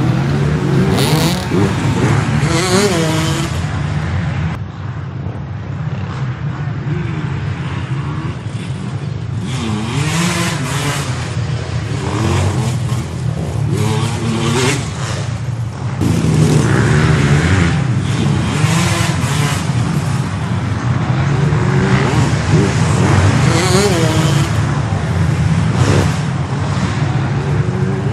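Many dirt bike engines running at once, revving up and down over and over on top of a steady low engine drone, as riders try to ride and push up a rocky hill climb.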